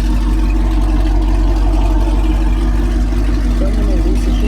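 Steady, loud running noise of a vehicle with a deep, even hum, without any rise or fall.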